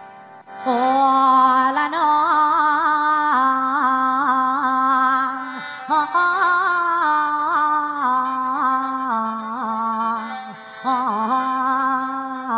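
Mor lam music with the khaen, the Lao bamboo free-reed mouth organ: a melody of long held notes, each ornamented with small bends as it changes, coming in loudly about a second in.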